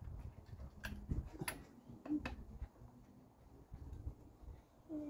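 Faint, scattered clicks and light taps of hand tools at the carburettor of a Vauxhall Viva while its fuel mixture is adjusted to lean it off, since it is thought to be running too rich. A brief whine comes about two seconds in.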